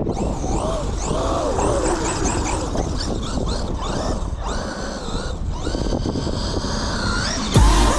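Electric RC monster truck's motor whining up and down in pitch as the throttle is worked, over steady rumbling noise and wind on the microphone. Music starts near the end.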